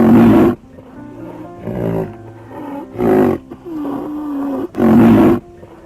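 A large animal gives three loud, short roaring calls about two seconds apart, with quieter calls between them, over background music.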